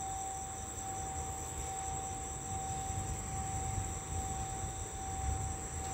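Crickets and other night insects trilling steadily, with a steady mid-pitched tone and a low rumble underneath.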